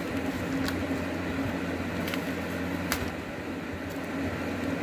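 Electric fan running with a steady hum, with a few brief clicks and scrapes of a package being cut open with a letter opener.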